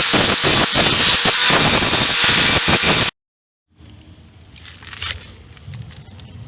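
A small electric motor-driven tool runs at speed: a high steady whine over a dense, rattling clatter. It cuts off abruptly about three seconds in, leaving only faint low background sound.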